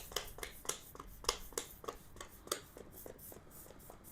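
Short, irregular rubbing and scraping strokes, a few a second, on a motorcycle tire and wheel just after its bead has been broken; the strokes are strongest in the first two and a half seconds and then fade to lighter rubbing.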